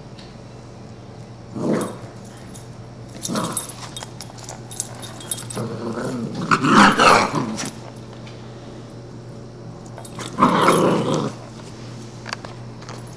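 English cream golden retriever puppy growling and barking in four short bursts, the longest and loudest about six to seven and a half seconds in.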